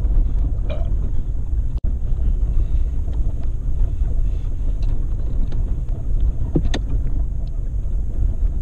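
Off-road vehicle driving: steady low engine and ride rumble with wind buffeting the microphone. A few knocks and rattles come through, the sharpest about seven seconds in.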